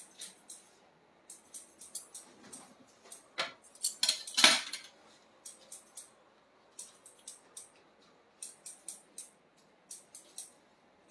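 Quick runs of small, sharp metallic clicks, with one louder short hiss-like burst about four seconds in.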